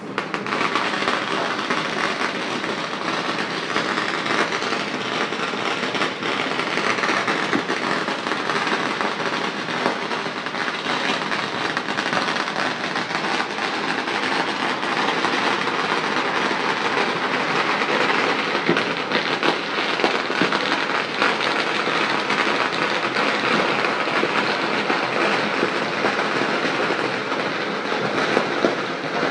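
Many firecrackers and fireworks going off at once across the town, merging into a steady, dense crackling din.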